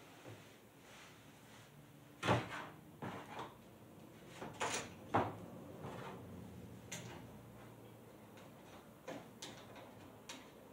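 Knocks and clatter of a plastic brush cutter safety guard being fitted against the metal shaft and handled on a wooden bench, the loudest knocks about two and five seconds in. Light ticks near the end as a screwdriver starts turning the guard's fixing screw.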